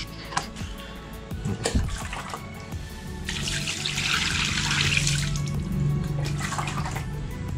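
Water poured from a plastic dipper splashing over a removed motorcycle brake caliper and onto the concrete floor, starting about three seconds in and lasting about three seconds: rinsing spilled brake fluid off the caliper. A couple of light knocks from handling the caliper come just before.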